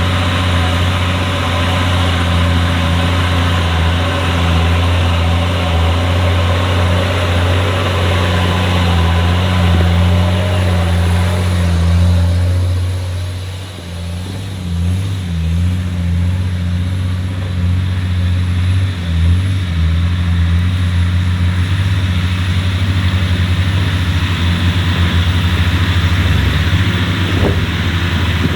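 Off-road 4x4 vehicle engine running with a steady low drone, dipping briefly about halfway through before picking up again.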